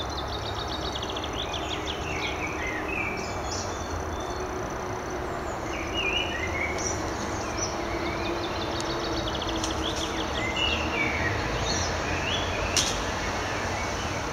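Small songbirds chirping and singing fast trills over a steady outdoor background hiss, with one short sharp click near the end.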